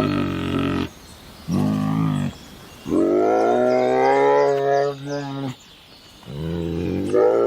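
An animal calling: four low-pitched calls, the third drawn out for about two and a half seconds.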